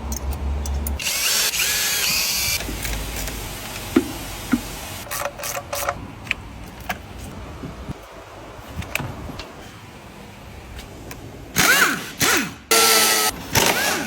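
Handheld power tool run in short bursts: once about a second in and twice near the end. Scattered clicks and knocks of tools and metal parts come in between.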